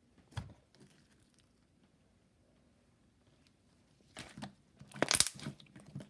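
Slime being squished and stretched by hand, crackling and popping, starting about four seconds in after a single faint click near the start.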